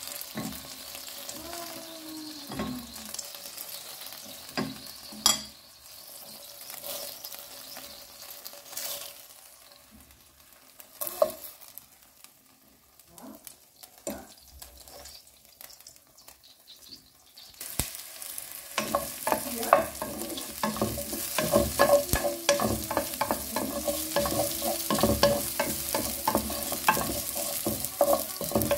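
Chicken wings frying in oil in a nonstick pan, with a fork clicking against the pan as they are turned. About two-thirds of the way in, a much louder, crackling sizzle starts as sliced red onion and garlic fry in the oil and are stirred with a spatula.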